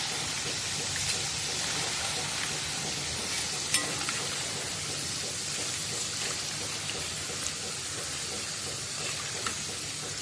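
Raw banana pieces deep-frying in hot oil in a kadai: a steady sizzle, with a few light clicks as a metal strainer and slotted spoon scoop the fried pieces out.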